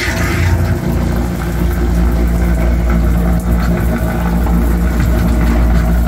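Liberty Pumps sewage pump running with a steady hum, plugged straight into the outlet so that it bypasses its float switch and pumps down the sanitary sump basin; the piggyback float is not working.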